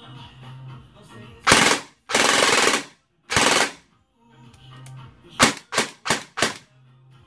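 Airsoft M4 electric gun (AEG) with a V2 gearbox firing test bursts through a newly installed handmade mosfet: three quick full-auto bursts, the longest about two-thirds of a second, then four fast single shots.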